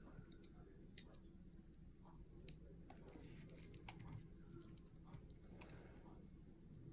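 A thin blade scoring lines into a bar of soft soap, faint with a few sharp ticks about a second and a half apart over a low steady hum.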